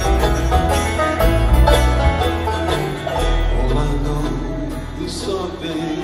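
A bluegrass band playing live, heard from the audience: upright bass, acoustic guitars and banjo in an instrumental jam. The picking is busy for about the first half, then thins out over a long held low bass note.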